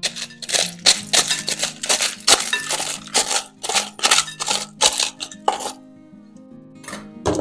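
Kitchen knife scraping and tapping chopped chives out of a plastic tub, a quick run of sharp clicks and scrapes that thins out near the end, over background music.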